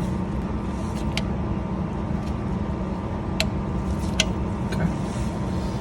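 Torque wrench tightening a car's oil drain plug to 30 ft-lb: a few sharp, spaced clicks over a steady low hum.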